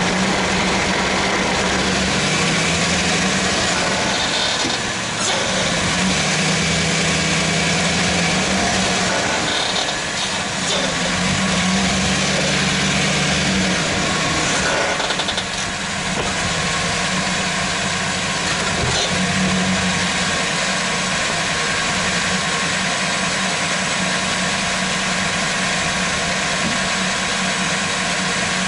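Chevrolet Silverado 1500 running, heard from under the truck at the front control arm: a steady rush of noise with a low hum that shifts up and down in pitch every few seconds.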